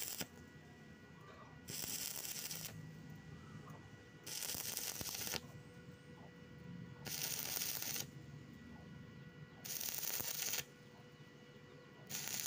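Stick-welding arc crackling and hissing in bursts of about a second, struck and broken again about every two and a half to three seconds: a stop-start weld where the electrode is lifted off between runs, its tip glowing, while the puddle cools a little.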